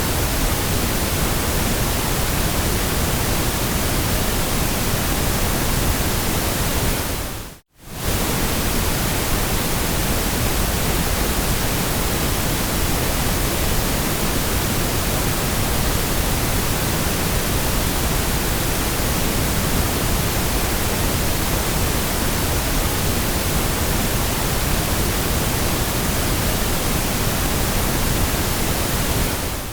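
Steady white noise: an even, unchanging hiss across the whole range from deep rumble to high hiss. About eight seconds in it fades out to near silence for a split second and comes straight back.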